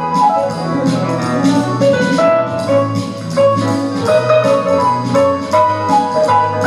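Instrumental music with a steady beat, a bass line and a melody of held notes.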